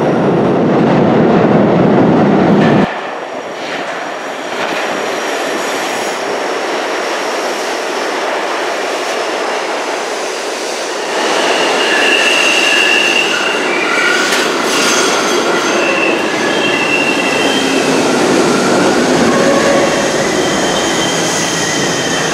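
New York subway R-32 train running on the rails. A loud rumble cuts off suddenly about three seconds in, then the train rolls into the station, getting louder about eleven seconds in as its steel wheels squeal in several high, wavering tones.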